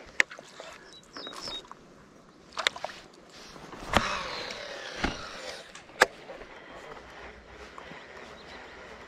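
Fishing tackle handled in a kayak: a few sharp clicks, and about four seconds in a cast, a click followed by a whirring that falls in pitch as line runs off the baitcasting reel's spool.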